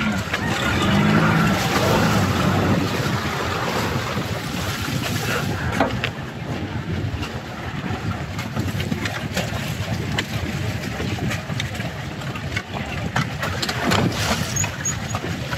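Wind buffeting the microphone aboard a sailing boat under way: a steady rushing with a low rumble and brief gusty thumps.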